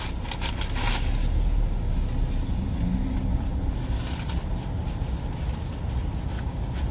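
Car engine and road noise heard from inside the cabin as the car pulls away, a steady low rumble, with a few light clicks in the first second.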